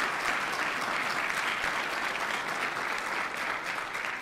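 Audience applauding, a sustained round of many people clapping.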